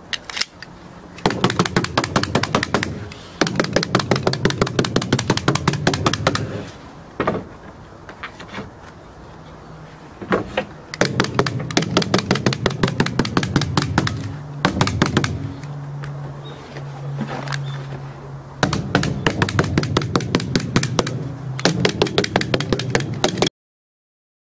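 Rapid bursts of small tool strikes, about ten a second, fastening thin wooden roof shingles, with a low steady hum between bursts. The tapping stops abruptly near the end.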